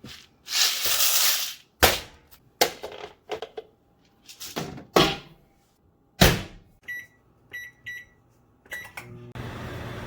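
Rustling and a string of knocks as a microwave popcorn bag is handled and the microwave door shut, then four short keypad beeps. The microwave oven then starts running with a steady hum about a second before the end.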